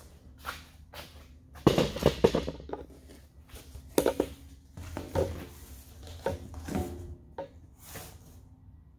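Irregular knocks, scrapes and rustles of a cardboard template being carried and fitted against the end of a steel smoker tank, with footsteps. The loudest knocks come about two and four seconds in.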